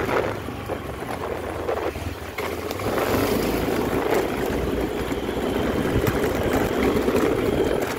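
Motor scooter being ridden along a road: steady engine and road noise with no break.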